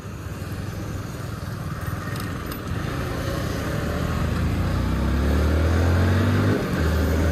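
A motorcycle engine pulling away and accelerating, its note rising in pitch and growing louder, with a short break in the note near the end at a gear change, over road and wind noise.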